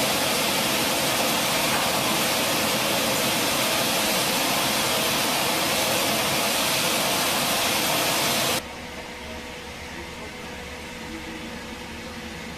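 Steady machine noise and hiss from a bulk unloader's rotating paddle intake head working through loose grain. About two-thirds of the way through it cuts off abruptly to a quieter, lower hum heard from inside the operator's cabin.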